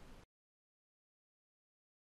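Near silence: faint background hiss cuts off abruptly a quarter second in, leaving dead digital silence.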